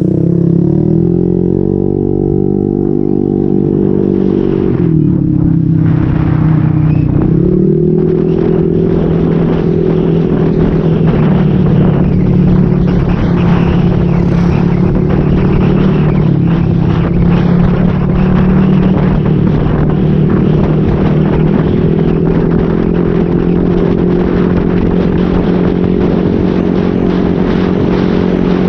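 Motorcycle engine through an SC Project aftermarket exhaust with a modified elbow, under way: the engine note dips twice in the first several seconds, around four and seven seconds in, then holds a steady pitch at cruising speed.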